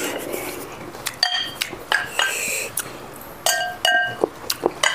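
A metal serving spoon clinking against a glass bowl of chicken curry as it is scooped out: a series of short, ringing chinks.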